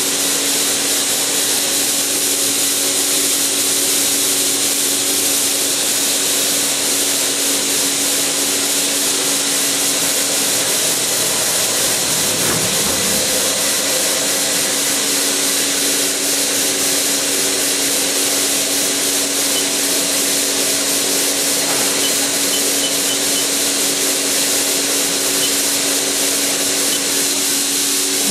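Haas SL-30T CNC lathe running under power: a steady whirring noise with a constant hum.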